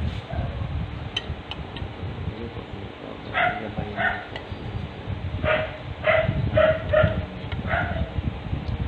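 A dog barking, about seven short barks in a loose series from about three seconds in until near the end.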